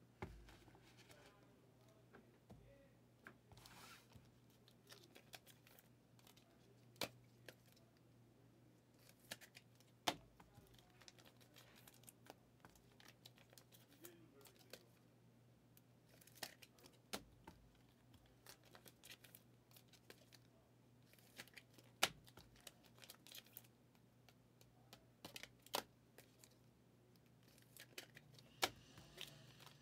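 Faint handling of trading cards and plastic card sleeves: soft sliding and crinkling with scattered sharp clicks as cards are tapped and set down, over a low steady hum.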